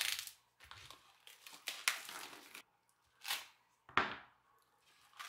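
Plastic wrap over a foam meat tray crinkling and tearing as it is cut open and raw pork ribs are pulled out. A soft slap about four seconds in as a rib is set down on a plastic cutting board.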